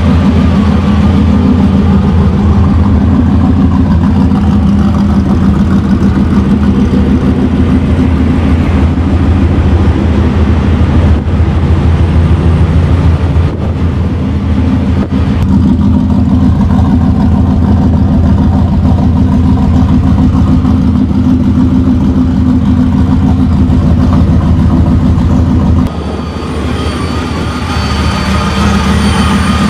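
Supercharged 5.4-litre V8 of a Ford SVT Lightning pickup idling steadily and loudly. A few seconds before the end the sound drops in level and a thin high whine comes through more clearly.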